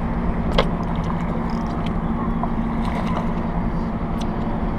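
Boat motor running steadily with a low, even hum, with a sharp click about half a second in and another near the end.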